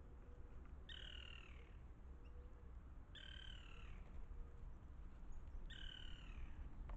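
A bird calling three times, about two and a half seconds apart, each call a short note falling slightly in pitch, over a low background rumble.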